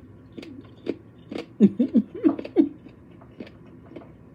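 Close-up chewing and crunching on gristle from jerk rib tips, with wet mouth clicks throughout. About halfway through come a few loud closed-mouth "mm-mm" hums of enjoyment.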